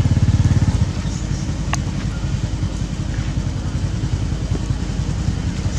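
An engine running at a steady idle: a low, rapid putter, a little louder in the first second. A single sharp click comes a little under two seconds in.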